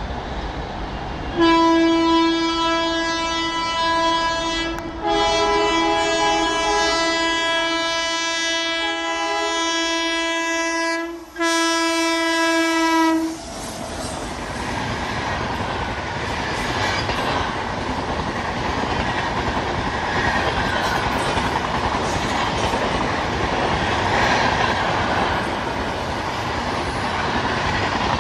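WAP-7 electric locomotive's air horn sounded in three long blasts of one steady pitch, the middle blast the longest. Then the express's coaches pass close by at speed, with a loud rush and the clatter of wheels over the rail joints.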